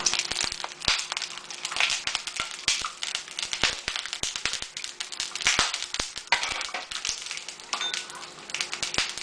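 Cooking oil crackling and spitting in a hot pan: a dense run of irregular pops and sharp crackles over a sizzle.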